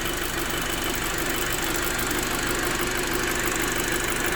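Freshly rebuilt Audi A4 B7 2.0 TFSI turbocharged inline-four idling steadily, with a fast, even ticking running through it. The owner judges that it sounds great.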